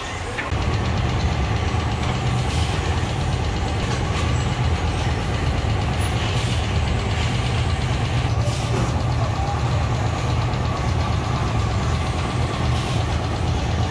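Machinery running: a steady low mechanical drone.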